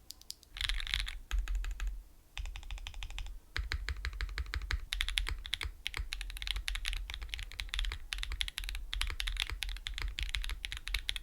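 Fast typing on a mechanical keyboard: rapid runs of key clicks, broken by a few short pauses in the first few seconds, then typed steadily.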